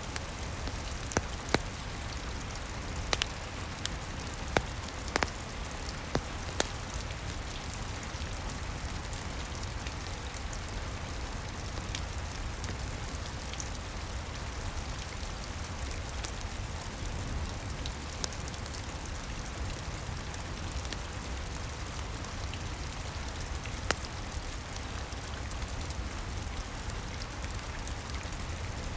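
Steady rain falling on a roof, mixed with a wood fire's occasional sharp crackles, several in the first few seconds and one more later on.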